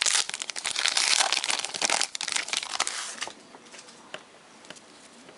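Crinkling of a trading card pack's wrapper as it is torn open and handled, lasting about three seconds, then only a few light clicks.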